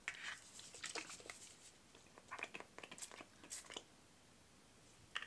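Faint handling of a plastic pump-spray bottle of heat-protectant spray, with a couple of short, faint spritzes about three seconds in.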